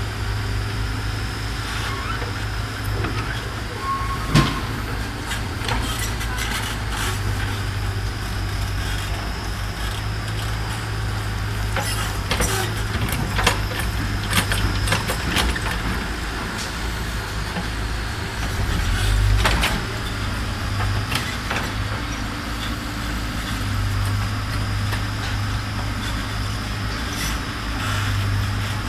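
Backhoe loader's diesel engine running steadily, with scattered sharp knocks: a loud one about four seconds in and a cluster between about twelve and fifteen seconds. The engine swells louder for a moment about nineteen seconds in.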